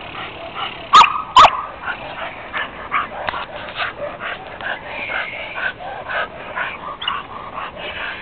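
Young German Shepherd barking twice loudly and sharply about a second in, then a run of quicker, quieter yips and whines.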